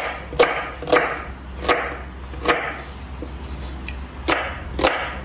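Kitchen knife slicing a red onion on a wooden cutting board: about seven sharp knocks of the blade on the board at an uneven pace, with a pause of nearly two seconds after the fifth.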